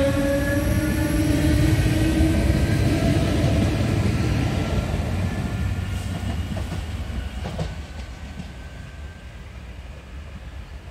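DART electric multiple unit pulling away, its traction motors whining in a rising pitch as it accelerates, over the rumble of wheels on rail. The sound fades steadily as the train draws off, with a few clicks from the wheels about seven seconds in.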